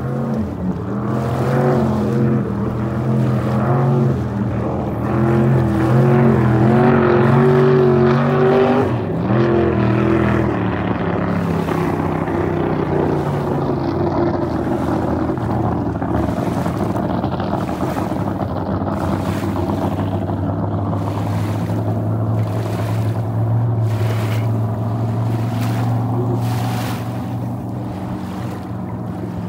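A 1971 Hallett flat-bottom boat's engine running hard across the water. Its pitch climbs for several seconds, drops sharply about nine seconds in, then holds a steady lower note.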